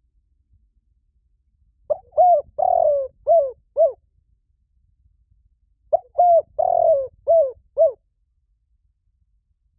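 Spotted dove cooing: two phrases about four seconds apart, each of about five short falling coos with a longer third note, the standard territorial call used as a lure call.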